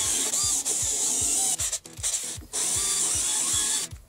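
Cordless drill boring through plywood, the bit running steadily under load. It stops briefly just under two seconds in, runs again, and stops near the end as the next hole is started.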